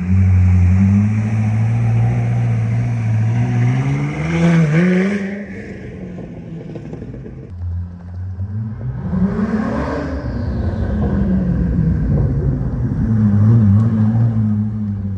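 Koenigsegg Jesko Attack's twin-turbo V8 accelerating: the engine note climbs for about five seconds and drops off suddenly, rises again to a peak about ten seconds in and falls away, then holds a steady drone.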